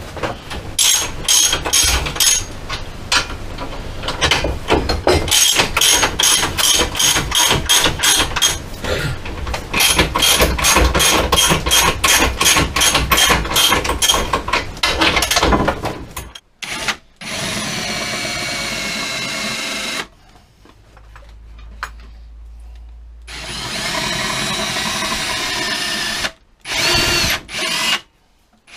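Cordless drill drilling aluminium extrusion, in steady runs of a few seconds separated by pauses and short bursts. Before that comes a long stretch of rapid clicking and rattling from tool work on the metal frame.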